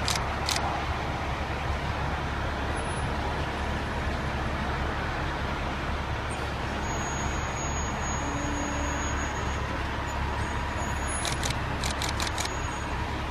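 Fire ladder truck's engine running steadily as the truck creeps slowly through a tight turn. A quick run of sharp clicks comes about eleven seconds in.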